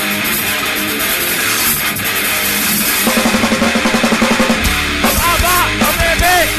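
Grindcore band playing loud distorted electric guitar, bass and drums, settling into a fast, even pulsing rhythm about three seconds in. A shouted vocal comes in near the end.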